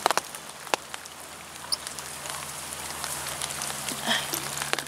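Light rain falling: irregular ticks of single drops over a soft, even hiss.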